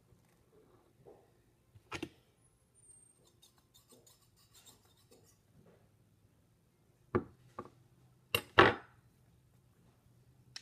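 Metal garlic press being handled while squeezing Play-Doh through it, clacking and knocking. There is one knock about two seconds in, then four sharp knocks in quick succession later on, the last the loudest.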